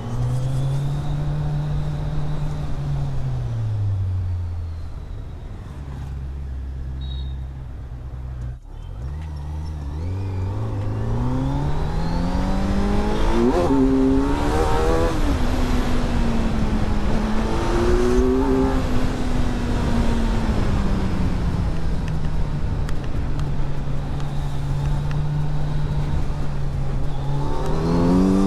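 Kawasaki Z900's inline-four engine running as the bike is ridden slowly. The revs fall off for a few seconds, dip sharply near nine seconds in, then climb as it accelerates, rise and fall with the throttle, and rise again near the end.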